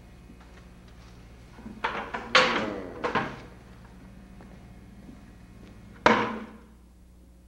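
A quick cluster of knocks and bangs about two seconds in, then a single sharp bang about six seconds in that rings away over half a second, over a steady low hum.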